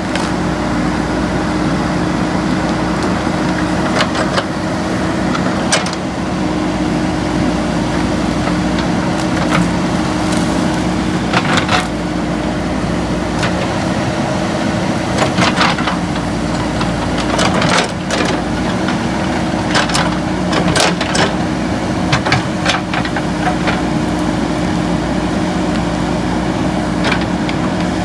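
The diesel engine of a JCB 3DX backhoe loader running steadily, with scattered sharp knocks and cracks over it.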